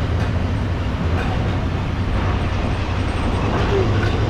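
Royal Enfield Interceptor 650's parallel-twin engine running steadily while riding, under a steady rush of wind and road noise on a body-worn microphone.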